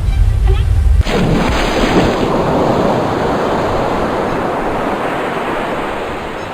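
Ocean wave sound effect: a low rumble, then a wave breaks about a second in and its surf hiss slowly dies away.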